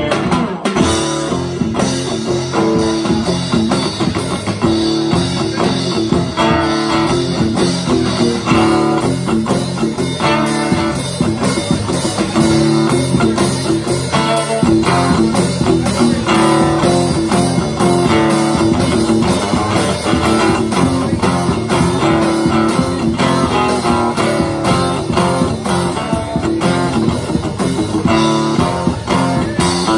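Live rock band playing an instrumental passage without vocals: a strummed acoustic guitar with drums and cymbals keeping a steady beat.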